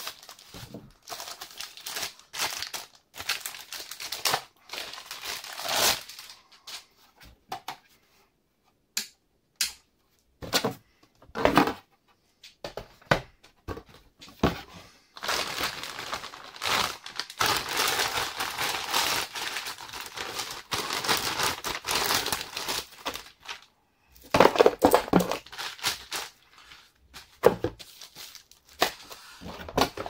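Plastic packaging bags and foam inserts crinkling and rustling as PC parts are unwrapped, with cardboard box flaps being opened. The rustling comes in irregular handfuls with brief pauses, then runs as a dense, continuous crinkle for several seconds around the middle, with a few louder handling noises near the end.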